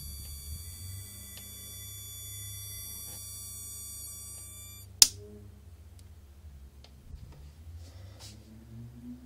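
A home-built PC that won't power on giving off a steady, high-pitched electrical whine of several tones over a low hum. A sharp click about five seconds in cuts the whine off, leaving only the low hum and a few faint ticks. The whine is the fault noise that comes with the failure to power on.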